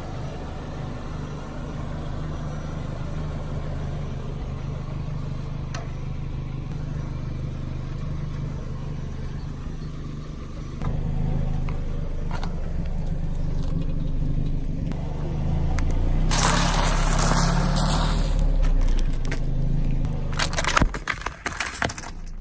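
A car engine running at low speed as the car rolls, getting a little louder about halfway. Late on comes a loud stretch of crackling and crunching, then scattered sharp cracks, as objects are crushed under the tyres.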